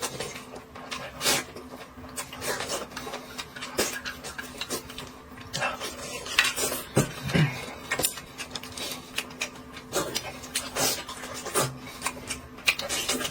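Utensils clinking and scraping against bowls and dishes during a meal, in many short irregular clicks.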